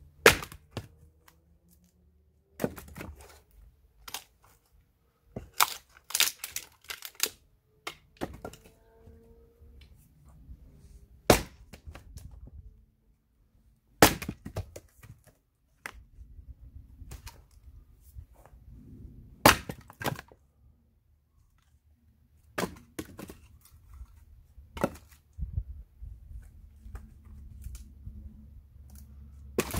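A 1.4 kg Swedish Hults Bruk axe splitting firewood on a chopping block: sharp cracking strikes every few seconds as the head bites and the rounds split, with lighter wooden knocks between them as pieces fall and are set up again.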